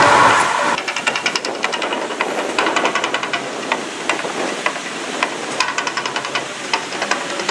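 Fountain water jets: a loud rushing spray that cuts off just under a second in, then irregular spattering and crackling as the water falls back onto the lake.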